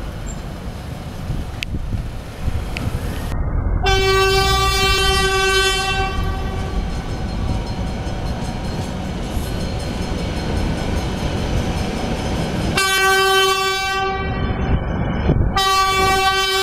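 GE diesel locomotive's air horn sounding three blasts: a long one about four seconds in, then two more close together near the end. Under it runs the low rumble of the approaching train.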